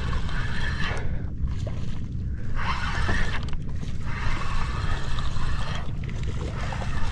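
Spinning fishing reel being wound in, its gears whirring in spells of a second or two with short pauses between, over a steady low rumble.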